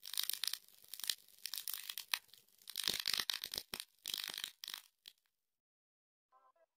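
Irregular electrical crackling and buzzing in short bursts for about five seconds, a sound effect for a sign flickering on. Faint music starts near the end.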